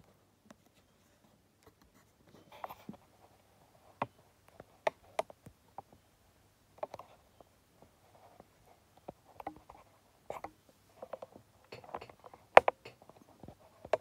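Lock pick and tension wrench working in an American 1100 padlock: sparse light clicks and short scratches of metal on metal, with one sharper click about twelve and a half seconds in. A picking attempt that is not yet opening the lock.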